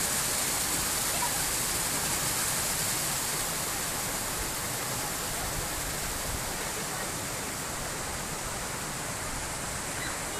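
Steady rush of running, splashing water, with a hiss that fades slightly toward the end.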